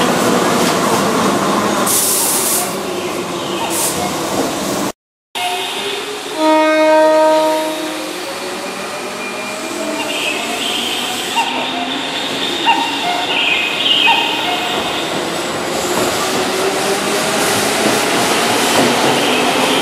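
Keihan 2400-series electric commuter train running on curved track, then, after a brief cut to silence, a short horn blast. The traction motors then whine slowly up in pitch as the train gets moving along the platform, with some wheel squeal.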